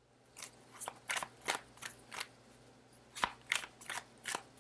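A deck of tarot cards being shuffled by hand: a quick irregular series of crisp card snaps, about three a second.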